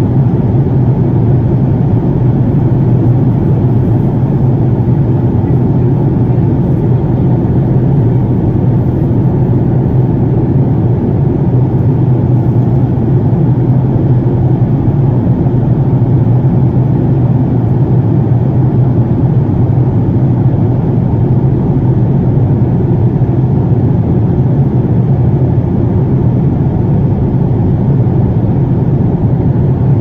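Steady low drone of a jet airliner's cabin in flight: engine and airflow noise heard from inside the cabin, unchanging throughout.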